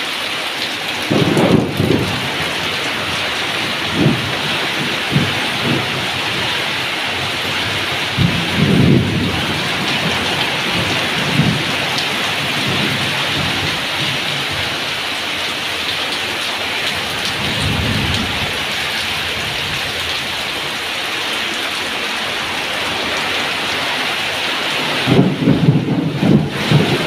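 Heavy rain pouring onto corrugated tin roofs and a yard, a steady loud hiss. Short low rumbles come and go over it: about a second in, around nine seconds in, and a cluster near the end.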